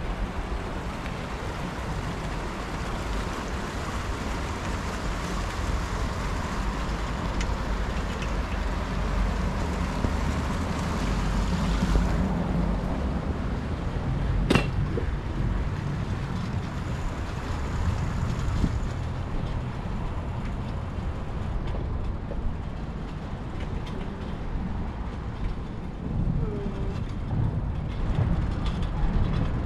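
Outdoor ambience: wind rumbling on the microphone over a steady hiss, with small fountains splashing in a pool during the first part, fading out after about twelve seconds. A single sharp click about halfway through.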